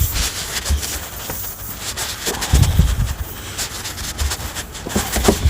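Handling noises from working on the tyre with the repair-kit tools: irregular scrapes and clicks, with gusts of wind rumbling on the microphone.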